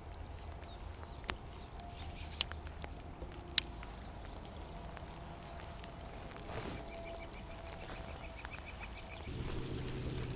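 Faint lakeshore background with a few sharp clicks and a brief rapid ticking from handling a baitcasting rod and reel during a retrieve. About nine seconds in, a low steady hum sets in.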